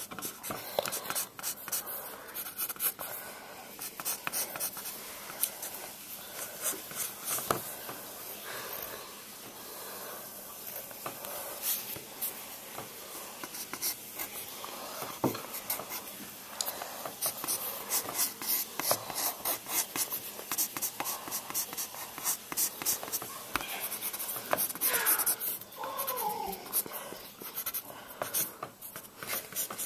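Pencil scratching across paper in quick, short sketching strokes, with a brief wavering sound near the end.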